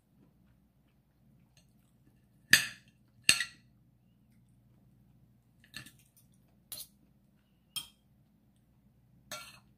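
Metal spoon and fork clinking and scraping against a ceramic plate and bowl while eating: six sharp clinks, the two loudest about two and a half and three seconds in, then four softer ones spaced about a second apart.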